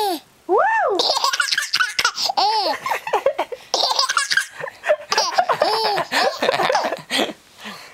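Baby laughing hard in repeated bouts: quick breathy pulses broken by high squeals that rise and fall.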